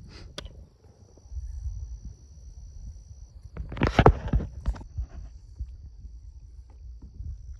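Steady high-pitched trill of night insects over a low rumble of wind or handling on the microphone, with one loud, brief noise about four seconds in.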